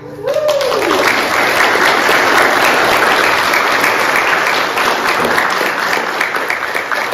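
Congregation applauding, starting suddenly and thinning out near the end, with one voice briefly whooping as it begins.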